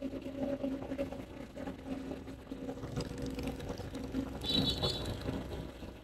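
Road rollers' diesel engines running with a steady low drone, one a yellow Sakai SV513D single-drum roller. A brief high-pitched beeping comes in about four and a half seconds in.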